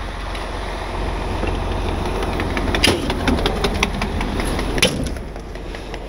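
Tow truck's engine idling as a steady low rumble, with a run of sharp metal clanks and clicks from about three to five seconds in as metal tools and hardware are handled.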